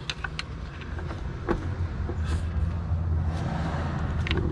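Flathead screwdriver prying at a stuck old water pump, giving a few scattered sharp metal clicks and scrapes over a steady low rumble.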